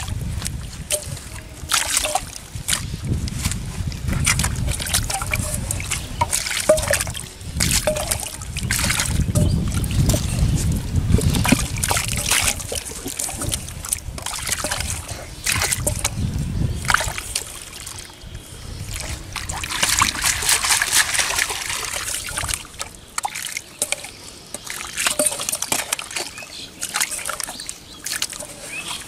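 Hands churning wet mud and muddy water in a shallow hole: repeated sloshing, splashing and squelching with trickling water.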